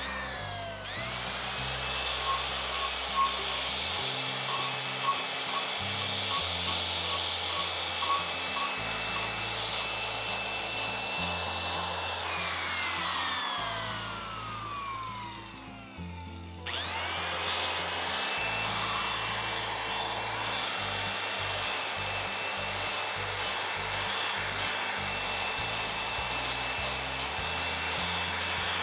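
Handheld electric angle grinder spinning up and running with a steady high whine as it grinds into wood. About twelve seconds in it winds down, then starts up again a few seconds later and begins winding down near the end.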